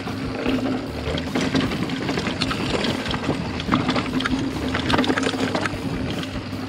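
Full-suspension mountain bike (Specialized Enduro 29er) rolling fast down a rough dirt and rock trail: a steady noise of tyres on gravel with many quick clicks and knocks from the bike rattling over stones, and wind rushing over the chest-mounted camera microphone.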